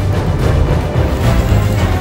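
Background music with heavy bass and a steady drum beat.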